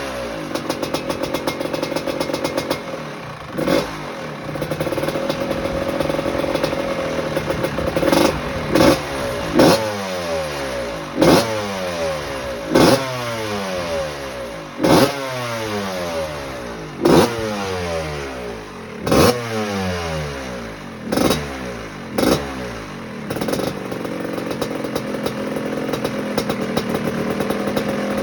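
1986 Maico GM Star 250's single-cylinder two-stroke engine running on its first warm-up after a cylinder-head repair. It is blipped sharply about ten times in the middle stretch, each rev dropping straight back, and settles to a steady idle near the end.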